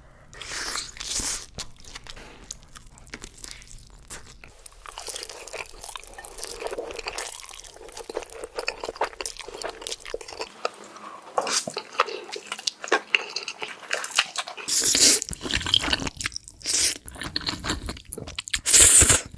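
A person biting and chewing crunchy food close to the microphone, with a stream of irregular crunches. The loudest crunches come about three quarters of the way in and near the end.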